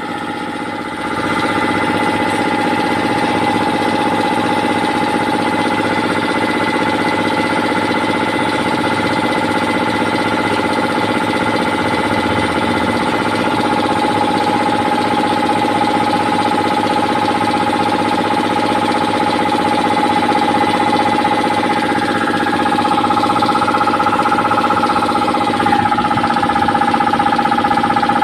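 Power Craft 3 hp twin-cylinder electric air compressor running steadily, pumping air into its 120-litre tank with a steady hum and whine. It gets louder about a second in, and a higher whine joins in near the end.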